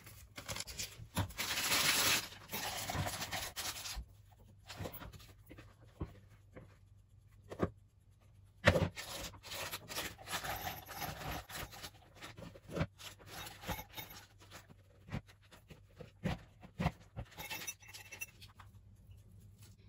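Plastic piping bag rustling as it is handled, then a spatula scraping thick whipped cream into the bag, with scattered soft taps. A single sharp knock about nine seconds in is the loudest sound.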